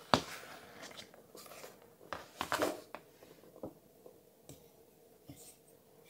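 Faint handling noise: a sharp click at the start, then scattered light taps and short rustles from a titanium pen and a paper notebook being handled.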